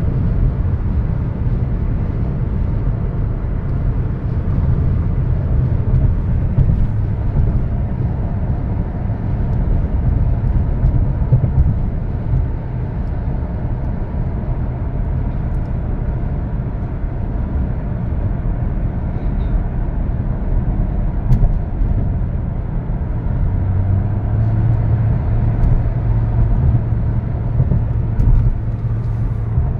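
Steady road noise inside a car cruising at highway speed: tyre rumble and engine hum, heavy in the low end. A low drone comes up about three quarters of the way through.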